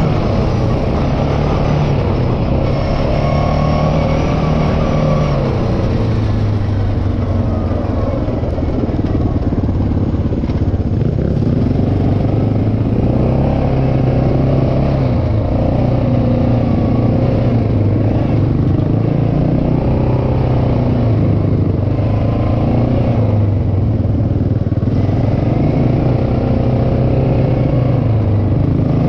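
Honda 400EX sport quad's single-cylinder four-stroke engine running while riding, its engine speed rising and falling repeatedly with the throttle.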